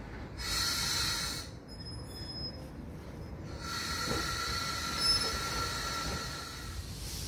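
EN57 electric multiple unit moving off slowly along the platform, with a steady high-pitched squeal in two stretches: one for about a second near the start, and a longer one from about three and a half seconds in, over a low rumble.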